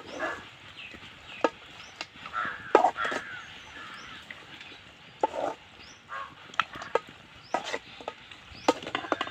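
Metal spoon knocking and scraping against an aluminium pan while meat pieces are stirred, giving about a dozen irregular clicks.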